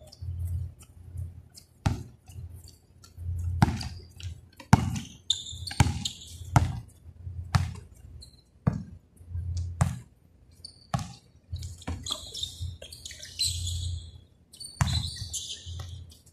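Basketball bouncing on a court during play: sharp thumps at an irregular pace, over a dozen of them.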